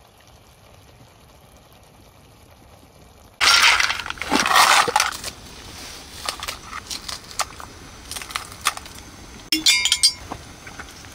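Scallop and mussel shells clattering and clinking against one another and a metal pan as they are handled. The clatter starts suddenly a few seconds in after a quiet stretch. Near the end a glass soju bottle clinks with a brief ringing tone.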